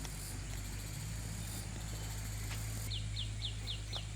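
Rural outdoor ambience: a steady low hum under a high insect-like hiss, and from about three seconds in a run of short, falling high chirps, about four a second.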